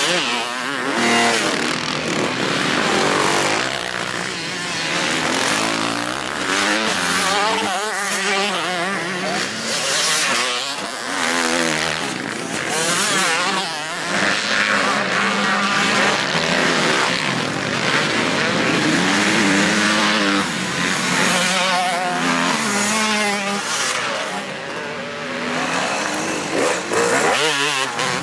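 Motocross dirt bikes racing past, their engines revving up and dropping back over and over as the riders accelerate and shift.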